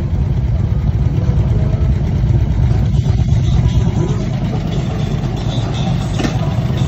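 Several Harley-Davidson bagger motorcycles idling together, their V-twin engines making a steady, loud low rumble.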